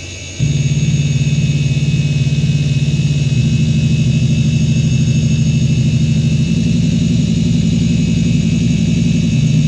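Samsung Voyager 6 SV0844A 8.4 GB hard drive seeking rapidly under a seek-pattern test: a dense, fast buzz of head-actuator seeks, with the high whine of its spindle bearings held steady over it. The seeking pauses briefly at the very start and changes pattern about six and a half seconds in.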